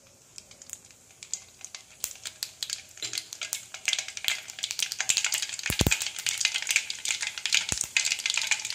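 Mustard seeds spluttering in hot sesame oil in a stainless steel kadai: a sizzle full of sharp pops that come faster from about two seconds in and turn dense, with a couple of louder knocks around the middle. The seeds are bursting, the sign that the oil is hot enough for the tempering.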